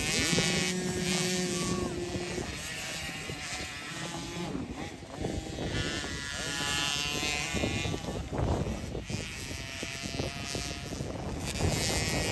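Several small dirt bike engines revving, each one's pitch rising, holding and dropping as the bikes accelerate and ease off.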